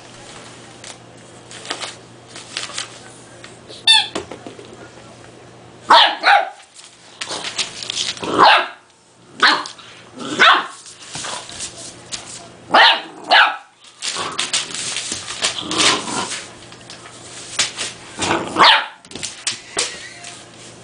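A two-month-old Dogue de Bordeaux (French mastiff) puppy barking at a toy: a string of short, high-pitched puppy barks with pauses between, starting about six seconds in.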